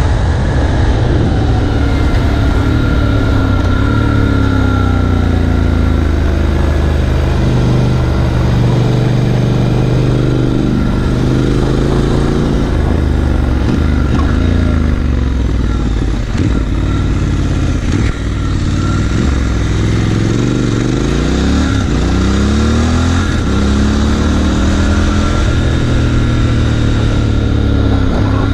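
Triumph Scrambler 1200XE's parallel-twin engine under way, heard from on board the motorcycle. Its pitch falls and rises several times as the throttle is rolled off and opened again, over a steady rush of wind and road noise.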